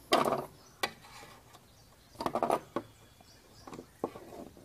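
Screwdriver tightening a small bolt that clamps a steel welding rod between metal washers on a wooden handle: a few short metal scrapes and clicks, the longest near the start and another about two seconds in.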